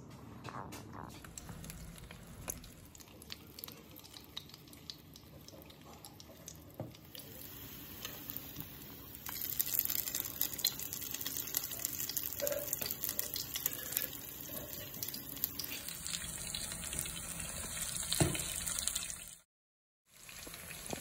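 Potato patties (aloo tikki) shallow-frying in hot oil in a frying pan: a steady sizzle with crackling pops that starts about nine seconds in, after a quieter stretch of faint clicks. The sizzle breaks off for about a second near the end, then resumes.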